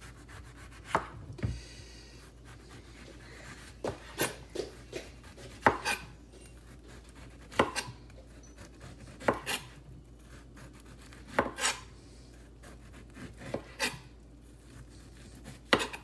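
Chef's knife slicing the rind off a whole orange and knocking down onto a cutting board: sharp knocks, mostly in pairs, every couple of seconds.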